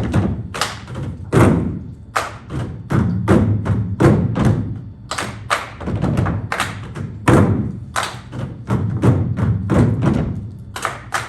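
Live rhythmic percussion: a run of loud, sharp thumps and strikes, several a second in an uneven beat.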